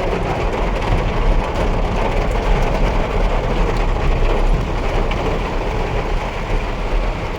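Steady noise inside a car driving through heavy rain: a rush of rain on the car mixed with low engine and road rumble.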